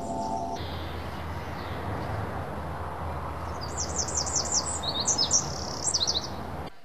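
A songbird singing a fast run of sharp, high, falling chirps over a steady hiss, all cut off suddenly near the end.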